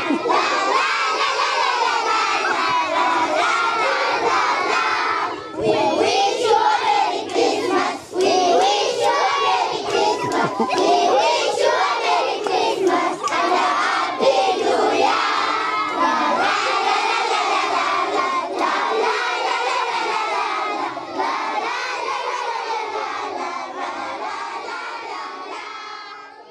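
A large crowd of young schoolchildren shouting and cheering excitedly, many voices at once. It gets louder about five seconds in and fades out near the end.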